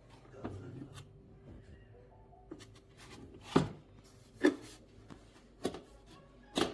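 A series of sharp knocks and clicks, about seven of them spread unevenly, over faint background music.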